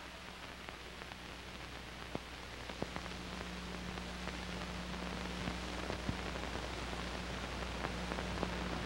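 Steady hiss with scattered crackles and clicks over a low, even hum: the background noise of an old film or tape soundtrack with no programme sound on it.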